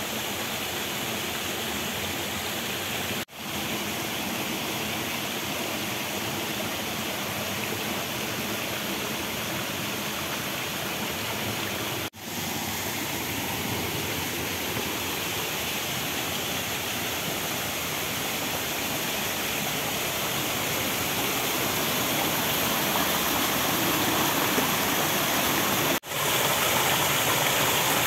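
Water of a hillside stream rushing steadily, broken by three short gaps and getting a little louder near the end.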